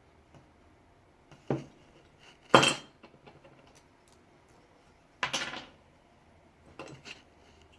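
Metal parts of a disassembled DeWalt reciprocating saw clinking and clattering as they are handled and set down. There are three sharp clanks, the loudest about two and a half seconds in, then a couple of lighter clicks near the end.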